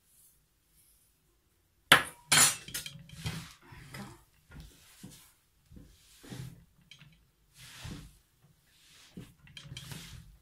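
A metal spoon clatters sharply against a wooden bowl about two seconds in, then hands knead and rub crumbly sellou mix of toasted flour, butter and oil, in short, irregular scraping and rustling strokes.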